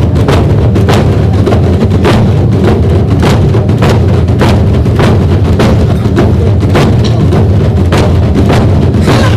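Korean barrel drums (buk) beaten together by a drum ensemble, loud, in an even rhythm of about two strokes a second.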